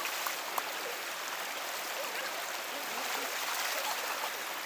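Steady rushing of flowing river water, with a couple of faint knocks of a machete on the fish about half a second in.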